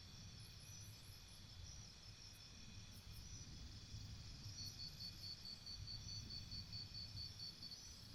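Faint forest insects, crickets among them, chirring steadily on several high pitches. From about halfway through, a rapid run of even high pulses, about five a second, stops shortly before the end. A low rumble sits underneath.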